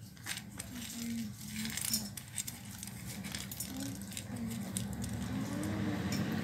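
Fried gram (roasted split chickpeas) poured from a steel bowl into a steel mixer-grinder jar, the dry grains falling in with many small irregular clicks and rattles against the metal.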